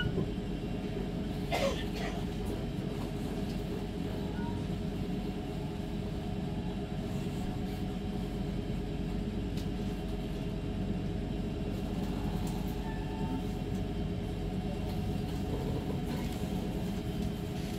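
Steady low rumble of a passenger train rolling slowly through a station, heard from inside the carriage, with a short sharp click about a second and a half in.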